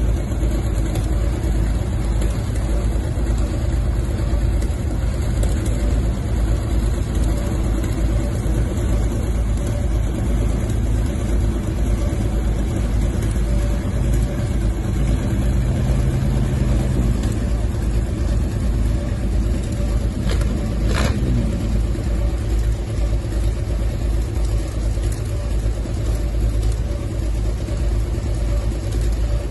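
Heavy vehicle engine idling steadily, a deep even running sound. A short squeak comes a little past two-thirds of the way in.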